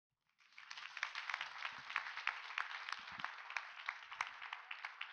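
Audience applause: many people clapping, starting about half a second in.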